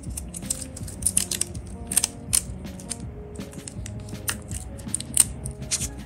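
Small sharp clicks and crinkles of a stainless steel deployment clasp being handled and its blue plastic protective film peeled off, over background music.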